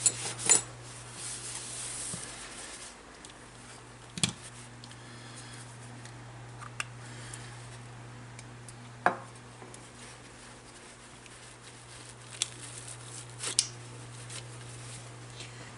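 A few separate small clicks and taps from hand tools and small parts being handled at a workbench, over a steady low hum.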